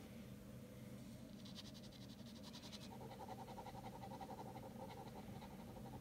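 Ballpoint pen hatching on drawing paper: a faint, rapid scratching of quick back-and-forth strokes that shifts lower in pitch about halfway through.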